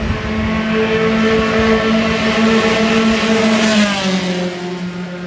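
A car's engine at steady revs grows louder as it comes near. About four seconds in its note drops in pitch as it goes past, then it fades.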